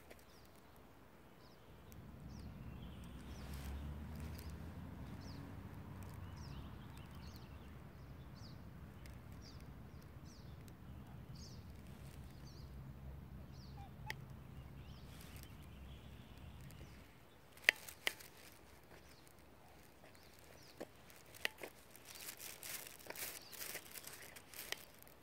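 A small bird giving short chirps over and over, over a steady low engine hum that cuts off suddenly a little past halfway. Then two sharp clicks and a spell of rustling and clicking near the end.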